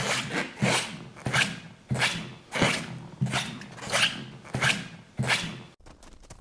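Footsteps of rubber: a steady walking pace of about three steps every two seconds, each a soft thud with a scuffing squeak, which stop abruptly near the end.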